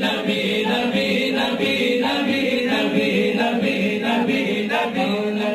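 Urdu naat, a devotional Islamic song, sung unaccompanied by several voices in chorus. It cuts off abruptly at the very end.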